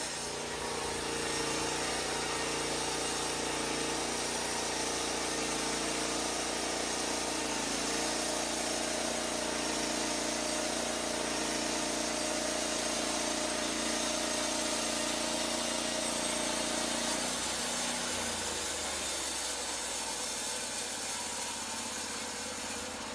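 Portable band sawmill running, its engine working steadily while the band blade cuts through a log. The engine note drops about three-quarters of the way through.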